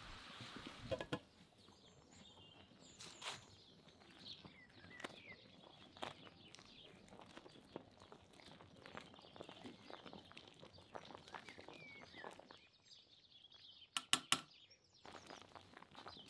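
Faint outdoor ambience with scattered short bird chirps and light clicks and knocks, and a quick run of sharp clicks near the end.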